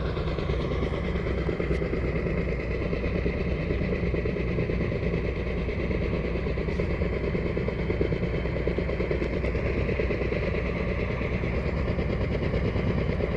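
Helicopter running, a steady engine and rotor noise that holds level throughout.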